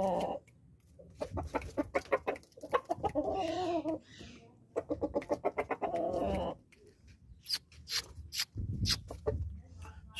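Aseel rooster clucking: runs of quick short clucks, with two longer wavering calls about 3 and 6 seconds in.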